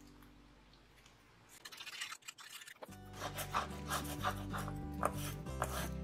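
Background music: one piece fades away at the start and another begins about three seconds in. Faint scratchy rubbing of paper being smoothed down can be heard under it.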